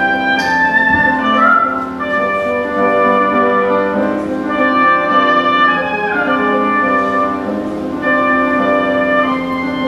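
Oboe playing a held, melodic line over Bösendorfer grand piano accompaniment in a live classical performance.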